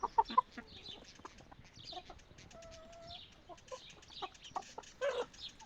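Chickens clucking in a run of short calls, with one longer held note about halfway through.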